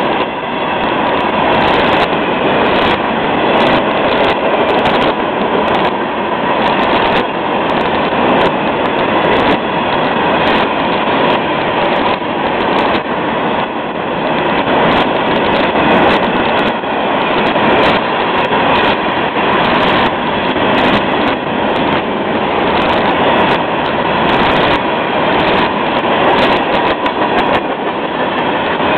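Freight cars of a long train rolling past: a steady loud rumble and rattle of steel wheels on the rails, with frequent irregular sharp clicks and bangs as the wheels pass over rail joints.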